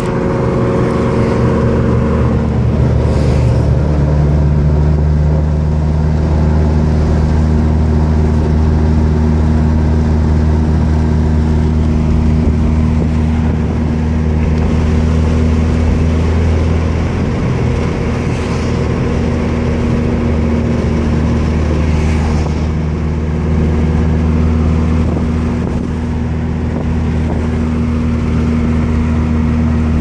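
Engine of a 1988 Ford Thunderbird Turbo Coupe, a turbocharged four-cylinder, heard from inside the cabin as a steady drone while cruising. It gets louder near the end as the car pulls under boost.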